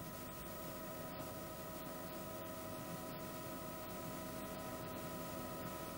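Helicopter heard faintly from its onboard camera: a steady hiss with a few steady whining tones running through it.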